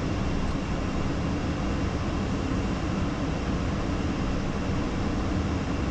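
Steady cockpit noise of an Embraer Phenom 300E business jet in the climb: an even rush of airflow and engine noise with a faint steady hum, thrust set to cruise.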